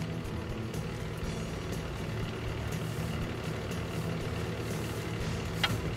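Pothole-patching truck's engine idling steadily, with one sharp click near the end.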